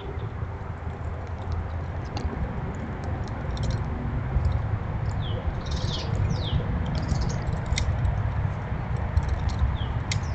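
A songbird calling outdoors with a few quick downward-slurred whistles about halfway through and again near the end, with scattered short high clicks. Underneath runs a louder low rumbling noise on the microphone.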